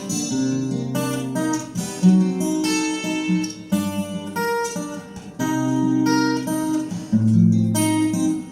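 Acoustic guitar playing alone: a passage of plucked chords with a bass line, an instrumental break between the sung verses of a song.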